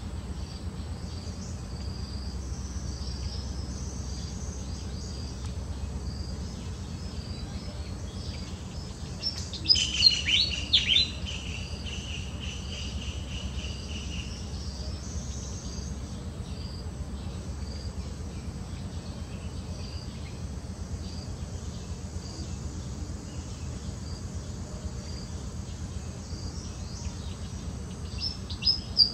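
Steady high insect chirring in woodland, with a loud burst of high, falling chirping calls about ten seconds in that trails off into a held note, and another burst of chirps near the end.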